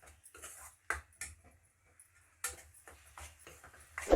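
Spatula stirring egg and radish leaves in a kadai: irregular scrapes and knocks against the pan, with a sharp metallic clink near the end.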